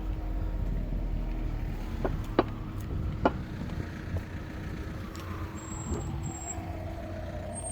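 Road traffic with a car passing over the last few seconds, over a steady low rumble of wind on the microphone and a faint steady hum. Two sharp clicks come a couple of seconds in.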